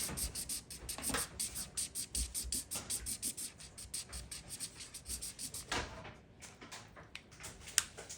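Felt-tip marker scribbling on paper: rapid back-and-forth colouring strokes, several a second, that thin out after about six seconds, with a single sharp click near the end.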